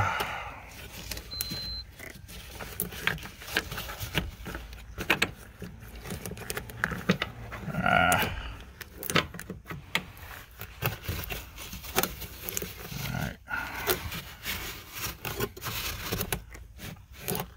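Irregular clicks, taps and knocks of gloved hands and tools handling parts at a car's fuel pump access opening, with a low, strained grunt about eight seconds in.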